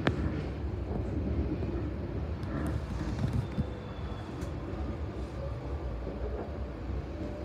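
Steady rumble of a moving passenger train heard from inside the carriage, with a sharp knock right at the start and a few fainter clicks.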